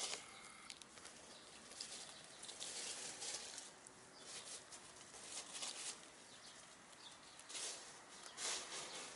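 Faint, irregular rustling as hens forage, pecking and scratching through grass and dry fallen leaves, with short louder bursts a few times.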